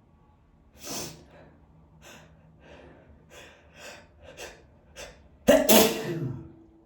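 A person's sneeze build-up: a gasp, then a run of short, quick, catching breaths, then a loud sneeze about five and a half seconds in.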